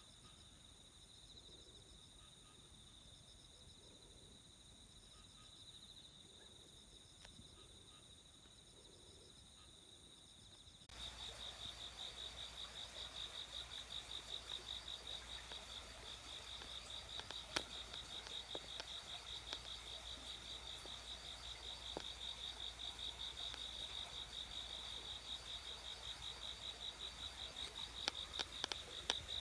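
A chorus of night-singing crickets: a steady high-pitched chirping that pulses about two to three times a second. It is faint at first and becomes suddenly louder about a third of the way through, with a low hum under it and a few sharp clicks near the end.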